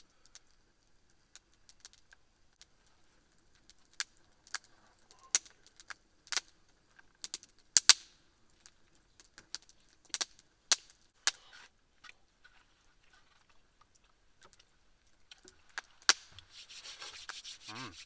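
Scattered sharp clicks and light taps of eating and handling food close to the microphone, then near the end a couple of seconds of hands rubbing briskly together.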